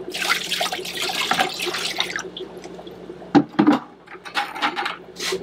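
Water poured out of a plastic bucket, rushing out for about two seconds, followed by a few short, sharp splashes in the second half.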